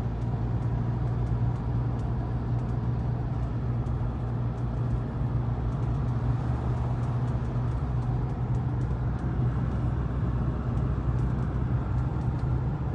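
Cabin noise inside a Mahindra Scorpio Classic S11 cruising at about 60 km/h in fourth gear on all-terrain tyres: a steady low drone of the diesel engine with tyre and road noise. A light rattle comes from the roof, heard as faint ticks over the drone.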